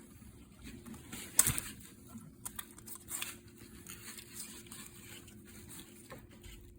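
Small clicks and rustling from hands working the blind's plastic parts and lift cord as the cord is fed into the carrier. One sharp click about one and a half seconds in is the loudest, with a few lighter clicks later.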